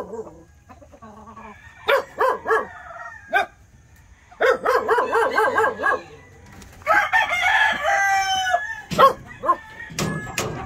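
Gamefowl roosters crowing, with shorter clucking calls from the flock between the crows; the longest, loudest crow comes about seven seconds in.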